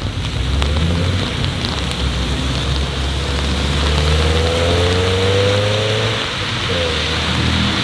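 BMW E36 saloon accelerating away on a wet road, its engine note rising in pitch for a few seconds in the middle and dropping away near the end, over a steady hiss of tyres on wet asphalt.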